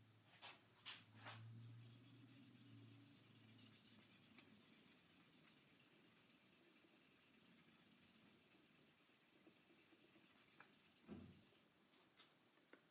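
Faint, quick back-and-forth rubbing of fine wet sandpaper on a guitar body's waterborne lacquer finish, starting with a few separate scrapes. One soft knock comes about 11 seconds in.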